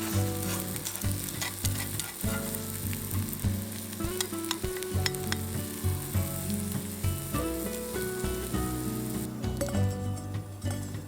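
Food sizzling in a hot pan, with scattered pops and spits; the sizzle stops about nine seconds in. Background music plays under it.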